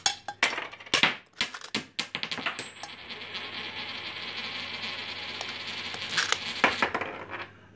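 Coins clinking and rattling in a cup as a cockatoo rummages through them with its beak: sharp separate clinks at first, then a few seconds of continuous jangling, then more clinks near the end.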